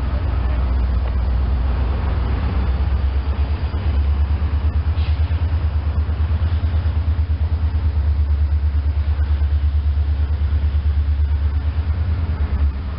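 EMD SD40-2W diesel-electric locomotive working with a string of freight cars, its engine giving a steady low rumble with an even, rhythmic pulse.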